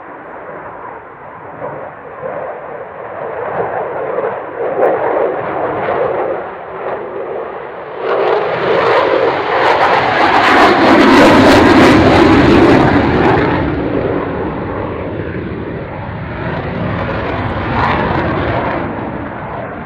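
Eurofighter Typhoon's twin EJ200 turbofan engines at display power. The jet noise builds to its loudest, with a harsh crackle, about halfway through, then eases off and swells a little again near the end.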